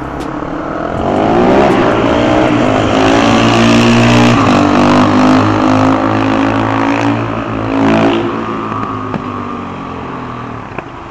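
Single-cylinder supermoto motorcycle engine revving hard as the bike accelerates, climbing in pitch over the first few seconds and holding high. There is a sharp rev about eight seconds in, and then the sound fades as the bike rides away.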